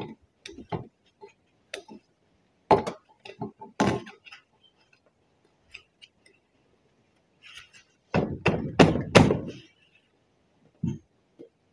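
Screwdriver prying at the retaining C-clip on a U-joint cap of an axle shaft held in a vise: scattered sharp metal clicks and scrapes, then a quick run of four or five heavier knocks a little past the middle.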